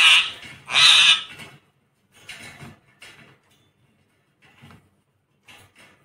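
Rose-ringed parakeet giving two loud, harsh squawks in the first second and a half, the second one longer, followed by a few much quieter short calls.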